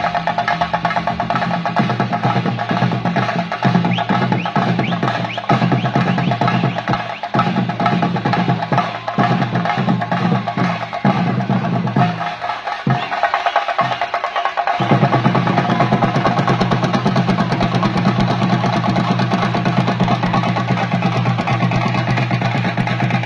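Chenda drums beaten fast with sticks in a dense, continuous roll, with steady ringing tones above; the deep drum sound drops out briefly about halfway through, then comes back. This is the drumming that accompanies a theyyam dancer.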